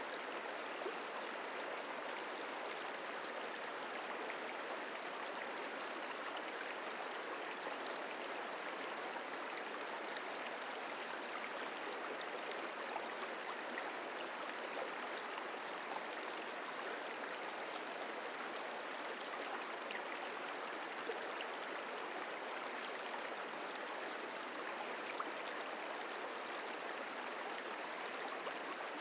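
Merced River flowing: a steady rush of running water, with a few faint ticks over it.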